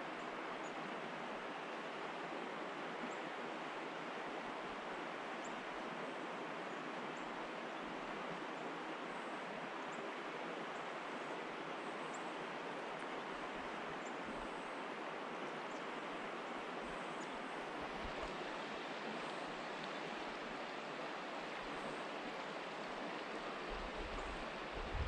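Steady rush of a creek's flowing water, an even hiss that does not change, with a few faint high ticks here and there.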